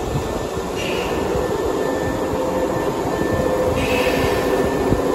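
3000 series resistance-controlled electric train moving along a station platform: a steady rumble of wheels on rail and traction motors, with two short hissing bursts, one about a second in and one near four seconds.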